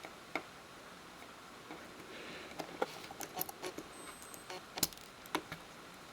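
Light, irregular clicks and taps of small tools and parts as an iPhone 5 is reassembled: screws, screwdriver and metal brackets. The clicks come closer together after about two and a half seconds, and the sharpest two fall near the end.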